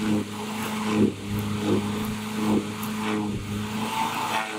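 Small current-limited arc on a 7,200-volt line buzzing in short broken spells, each starting with a crack, as it is drawn off the conductor with an insulated stick, over a steady electrical hum. The arc stays weak because the wind keeps blowing it out.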